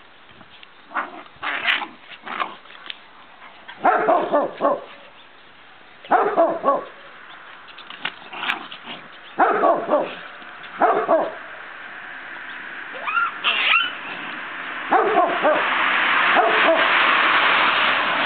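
Dog barking in short clusters of several barks, a few seconds apart. A steady rushing noise builds up near the end.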